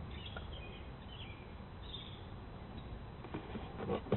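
Faint bird chirps over low background noise, with a few soft knocks near the end.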